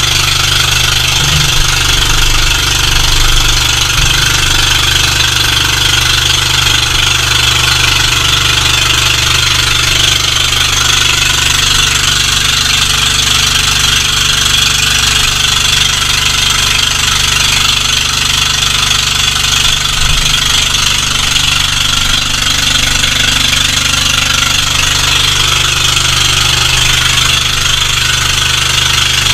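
Motorized outrigger boat's engine running steadily under way, loud and unbroken, with the rush of water along the hull.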